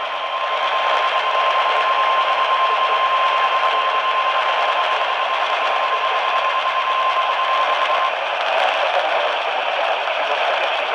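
NOAA Weather Radio warning alarm: one steady, unbroken high tone heard through heavy radio static, cutting off about eight seconds in while the static hiss goes on. The tone is the alert that comes before a severe weather warning message.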